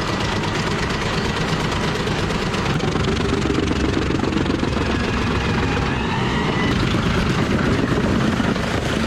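A heavy vehicle's engine running steadily under load, loud and continuous.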